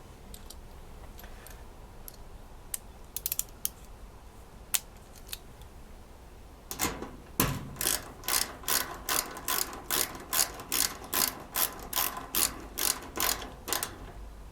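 Ratcheting hand tool tightening the middle (neutral) terminal nut on an electric dryer's terminal block: a few loose clicks at first, then a steady run of ratchet strokes, about two and a half a second, through the second half.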